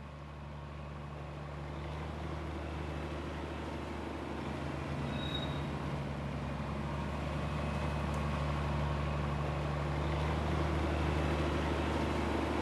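Steady low drone of the narrow-gauge NDM6 diesel locomotive's engine as it slowly approaches, growing gradually louder, mixed with the diesel engine of a truck running just ahead of it.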